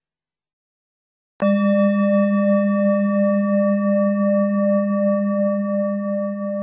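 Silence, then a metal singing bowl struck once about a second and a half in, ringing on with a deep hum and several higher overtones that slowly fade.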